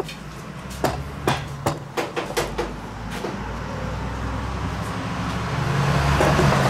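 About eight sharp knocks in the first three seconds, then the steady rushing noise and low hum of a motor vehicle passing, swelling toward the end.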